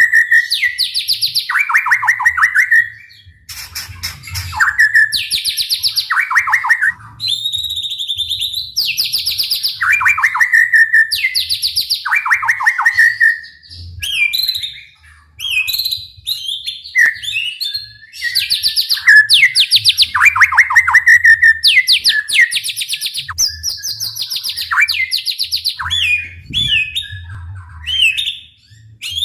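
White-rumped shama singing loudly in rapid-fire phrases: fast trills that sweep down in pitch, each about a second long, alternating with higher clear whistles and short pauses.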